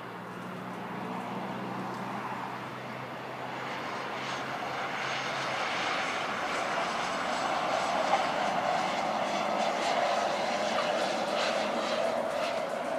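Let L-410 twin-turboprop airliner's engines and propellers running as it rolls along the runway on landing, a steady drone that grows louder throughout.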